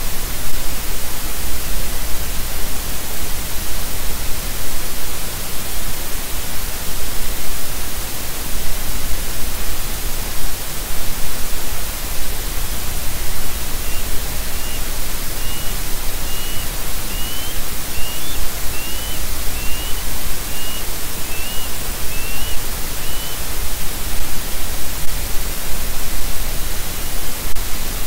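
Loud, steady hiss of static from an outdoor nest-cam microphone. Partway through, a bird gives a row of about a dozen short, faint rising chirps, a little under one a second.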